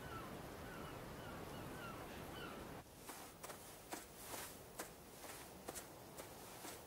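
Faint outdoor ambience with a bird's short chirping call repeating about twice a second. About three seconds in it drops to quieter sound with scattered soft clicks and rustles of headphones being handled and put on.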